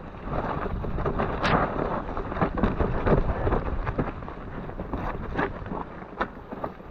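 Mountain bike riding down a muddy, rocky forest trail: tyres rolling over dirt and stones, with frequent knocks and rattles from the bike and wind rushing over the camera's microphone.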